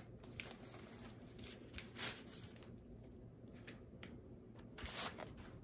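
Faint rustling and crinkling of packaging being handled and searched through, with two louder swishes, one about two seconds in and one near the end, and a few light clicks.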